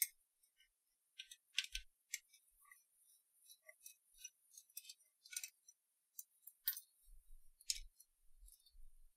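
Light, scattered clicks and ticks of small plastic and metal parts and wiring being handled inside an open cassette deck while its motor is freed and pulled out.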